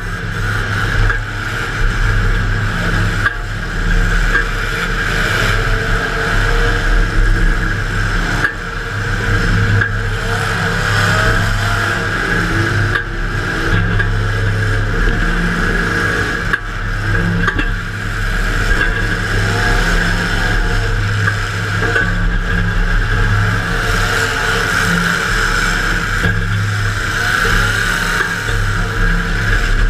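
Demolition derby car's engine running loud and steady, heard from inside the car, with a few sharp knocks.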